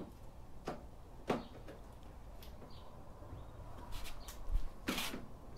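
Scattered light clicks and knocks of hardware and a plastic windshield being handled and fitted to a motorcycle fairing. There is a sharper knock about a second in and a short cluster of clicks near the end.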